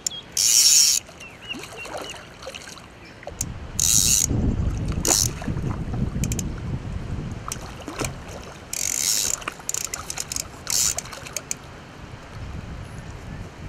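Centre-pin fishing reel's ratchet check buzzing in short spells as a hooked common carp pulls line off the spool, about half a second in, at about four seconds, and twice more near nine and eleven seconds. A low rumble runs between about three and a half and eight seconds.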